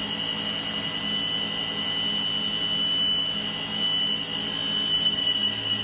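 Electric circular saw's motor running steadily with a constant high whine.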